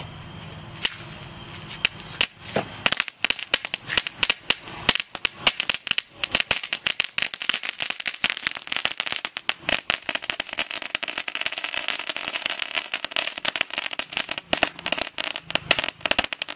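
A crackling ground firework going off: a few single pops, then from about three seconds in a dense, rapid crackle of many small bangs that keeps going and stops right at the end.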